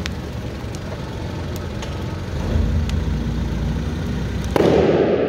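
A heavy vehicle's engine runs low as its big tyre rolls onto a large rubber ball and squashes it. About four and a half seconds in, the ball bursts with a sudden loud blast of rushing air that slowly fades.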